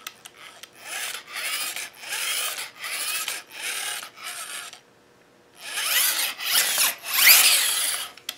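Gate opener's motor and worm-drive gearbox turned over by hand in repeated short strokes, the gears and screw rubbing and whirring. There is a short pause about five seconds in, and the strokes are louder after it.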